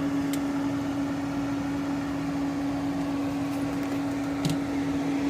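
Steady electrical hum of running radio test-bench equipment, with one strong steady tone over a fan-like whir. A couple of faint ticks come at the start and about four and a half seconds in.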